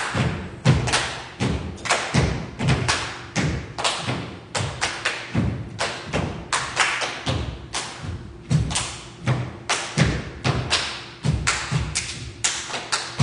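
Live percussion performance: a run of sharp thumps and hits, about two to three a second in an uneven rhythm, over a faint steady tone.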